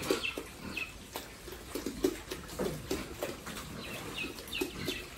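Pigs grunting in short, low, irregular bursts, with a few brief high chirps and clicks between them.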